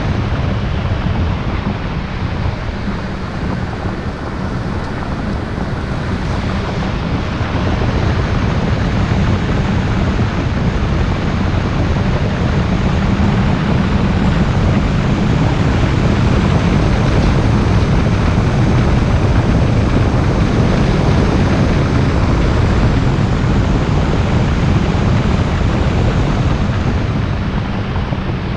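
Car driving along a winding road: a steady rush of tyre and road noise over a low engine drone, swelling slowly and easing off near the end.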